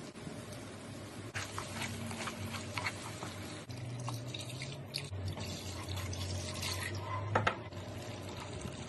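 Tamarind water poured from a glass jug onto spice paste in a pot, with a few light clicks and one sharper knock late on.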